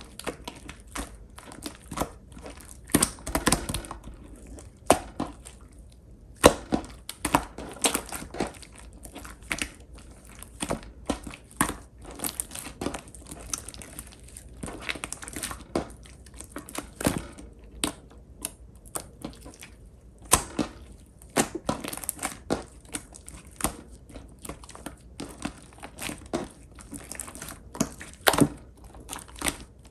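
Clear slime being worked by hand, giving irregular sticky crackles and pops, some much louder than others.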